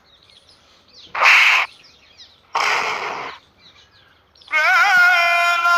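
A string of sound effects from a compilation video: faint bird chirps in the background, two short hissing bursts about a second and a half apart, then from about four and a half seconds in a loud, buzzy sustained tone that wavers at first and then holds steady.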